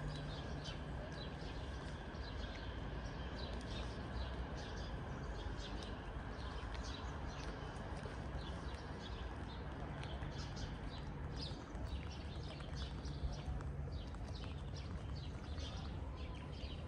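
Outdoor street ambience: birds chirping, with walking footsteps over a low, steady rumble of distant traffic.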